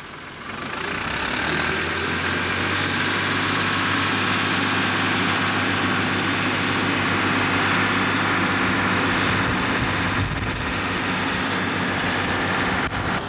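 Blue Ford farm tractor's diesel engine running steadily at a constant pitch as it drives past, growing louder over the first second or so.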